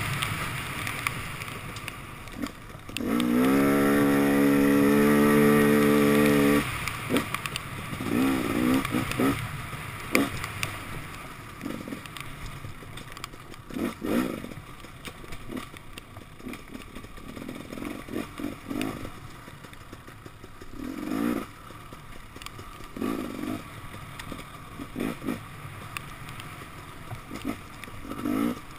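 KTM 250 XC-W's two-stroke single-cylinder engine under way on a trail, pulling in a high gear. It holds steady revs for about three seconds, starting about three seconds in, then comes on and off the throttle in many short bursts.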